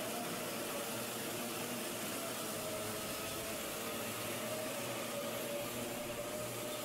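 Pack of IAME Bambino karts' small two-stroke engines running together on a warm-up lap: a steady hum with several engine notes overlapping.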